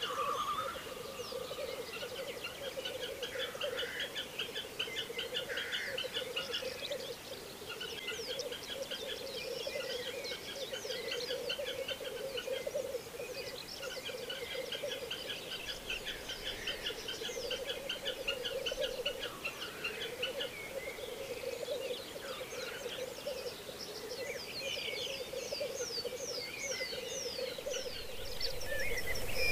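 Black grouse males bubbling (rookooing) continuously in a lek chorus, a steady low warbling drone, with rapid high trills from other birds above it.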